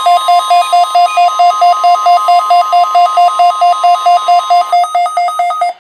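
Weather radio warning alarm tone being tested: one steady high tone under a fast, pulsing two-pitch beeping, about six beeps a second. The steady tone stops near the end and the beeping cuts off abruptly a moment later.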